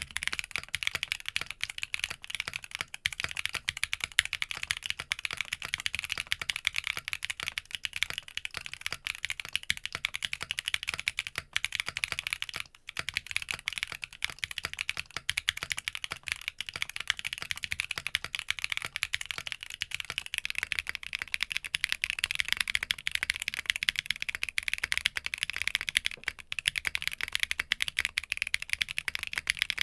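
Continuous fast typing on an Arc60 60% mechanical keyboard, dense clacking keystrokes. The build changes twice, at short breaks: first a polypropylene plate with EMT v2 switches, then an aluminium plate with Keygeek Avalon switches, and near the end a POM plate with Keygeek Avalons.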